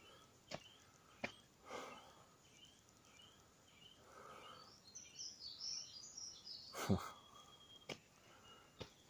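Small birds chirping: a run of short repeated chirps, then a brief burst of higher twittering about five seconds in. A few soft clicks are mixed in, with a sharper knock about seven seconds in.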